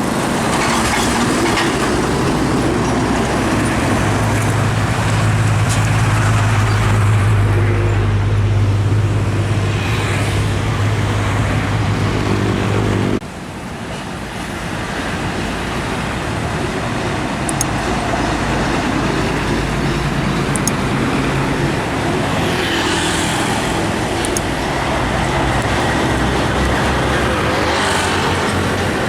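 Heavy trucks passing on a road: engines droning under steady traffic and tyre noise. A strong low engine hum builds for several seconds and cuts off abruptly about halfway through, then more vehicles pass.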